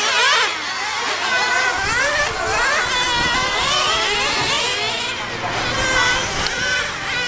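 Several nitro RC cars' small two-stroke glow engines running at high revs, each one's pitch rising and falling over and over as the cars accelerate and lift off for corners.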